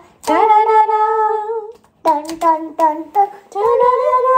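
A toddler singing in a high voice: a long held note, then a few short quick notes, then another long held note near the end.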